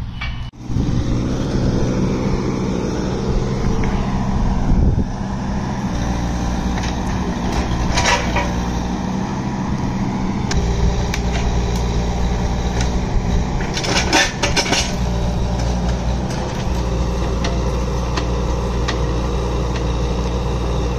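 Kubota U17-3 mini excavator's three-cylinder diesel engine running steadily under hydraulic load as the bucket and thumb grip and pull a wooden fence post. A few sharp knocks come about eight seconds in and again around fourteen seconds.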